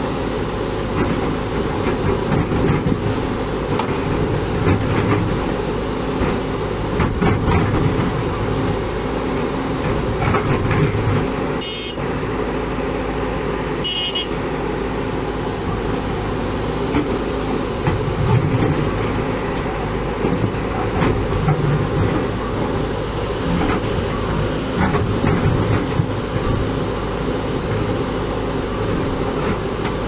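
Bobcat B900 backhoe loader's diesel engine running steadily, its loudness swelling and easing every few seconds as it works, with a brief high beep about halfway through.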